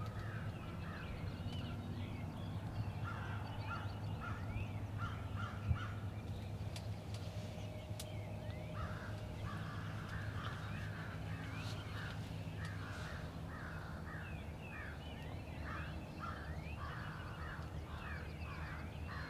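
Many American crows cawing in repeated harsh bursts, denser in the second half, over a steady low hum.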